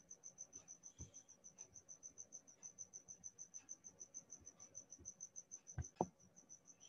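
A cricket chirping faintly and steadily, about eight high-pitched pulses a second. Two short knocks come close together near the end.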